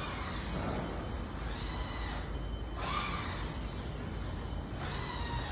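Curved-surface screen printing machine running, a steady low hum with a short rising-and-falling squeaky sweep every one and a half to two seconds.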